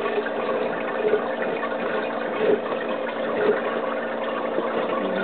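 Water running and gurgling steadily through an aquarium gravel siphon as it draws sediment out of the substrate, with a faint steady hum underneath.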